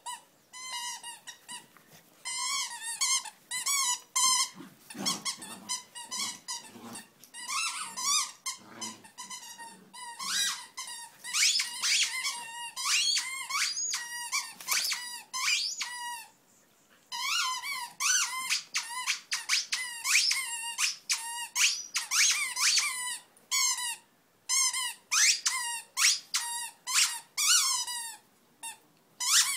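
A dog's plush squeaky toy squeaking over and over in quick runs as a Jack Russell terrier bites and chews it, stopping briefly a couple of times.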